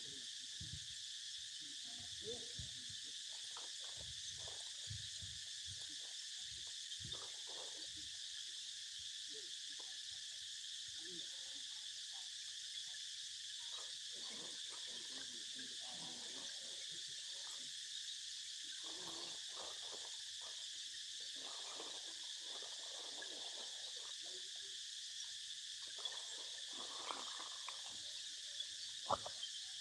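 A steady, high insect chorus from the forest. Close by there are scattered soft rustles and taps, and a few sharper clicks near the end.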